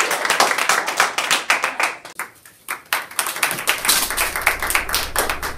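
A small group of students clapping, fast and uneven. The clapping nearly stops about two seconds in, then picks up again. A low steady hum comes in under it from about four seconds in.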